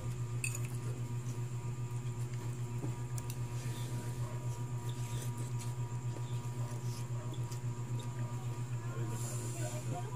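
A steady low hum with a fast flutter, over faint clicks of a fork against a plate and quiet chewing of a mouthful of rice noodles.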